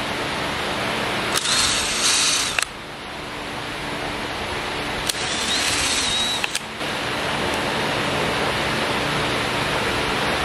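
Cordless DeWalt 20V drill driving screws in two short runs, about a second and a half in and again about five seconds in. Each time its motor whine rises and then holds steady, over a steady background hiss.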